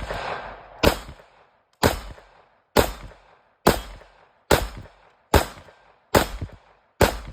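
Smith & Wesson M&P 5.7 pistol firing 5.7×28mm rounds: eight shots, evenly paced at just under one a second, each a sharp crack with a short echoing tail. The hits on the steel target barely make a sound.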